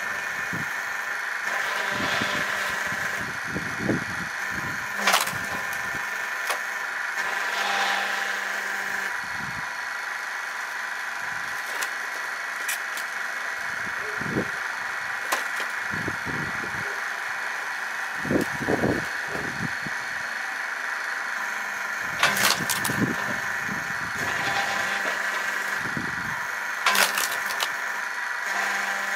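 Motor of a firewood saw-and-splitter machine running steadily with a constant hum, while wood knocks and cracks as pieces are cut, split and dropped. Sharp cracks stand out about five seconds in and twice in the last third.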